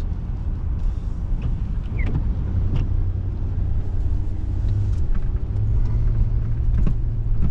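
Steady low rumble of a vehicle's engine and tyres heard from inside the cab while driving on rain-wet city streets, with a few faint ticks over it.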